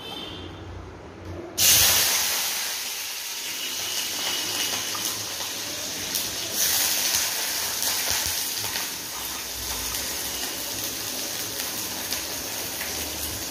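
Cubed onion, garlic cloves and green chillies dropped into hot mustard oil. They hit the oil with a sudden loud sizzle just under two seconds in, then fry with a steady sizzle.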